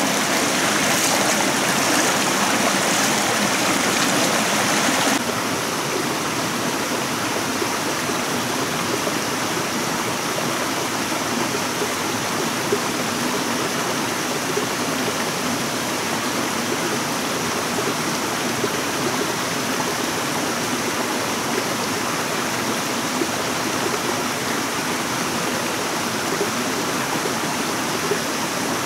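Rushing water, a steady, even rush with no pauses; it drops abruptly to a slightly lower level about five seconds in.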